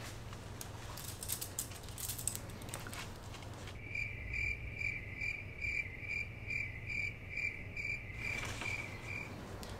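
Cricket chirping: a steady, even run of short high chirps, about two or three a second, starting a few seconds in and stopping near the end, over a low steady hum.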